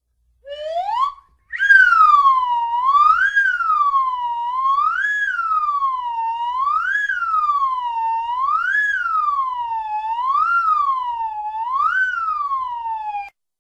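Cartoon siren sound effect: a short rising whoop, then a clean whistle-like tone that wails up and down about every two seconds, seven times over, before cutting off near the end.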